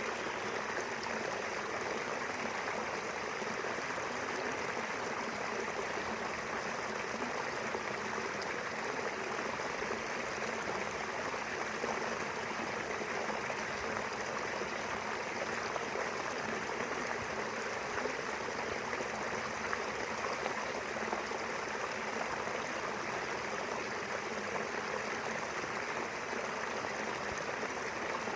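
Small river flowing steadily over its bed, a constant rushing and gurgling of running water.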